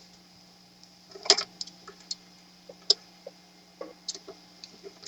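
Scattered light clicks and taps as the back panel of an 858D hot-air rework station's case is worked off, the two loudest about a second and three seconds in.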